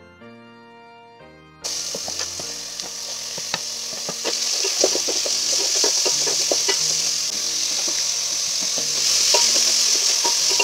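Organ-like music, then about one and a half seconds in a sudden start of chopped vegetables sizzling in hot oil in an aluminium pot, stirred with a wooden spoon that knocks and scrapes against the pot now and then.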